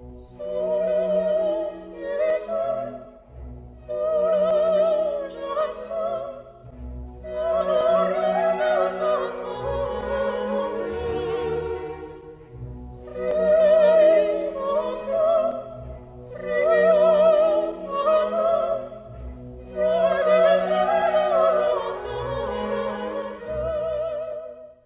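Operatic music: a solo voice sings phrases with a strong, wavering vibrato over an orchestral accompaniment, with short pauses between phrases.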